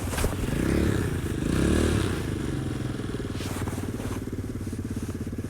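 A small engine running steadily at idle with an even pulse, swelling briefly twice in the first two seconds.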